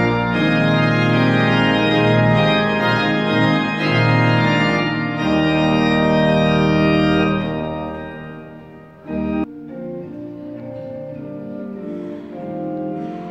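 Church pipe organ playing loud, sustained full chords with deep pedal bass, which die away about eight seconds in; after a brief low bump, the organ continues on quieter held chords.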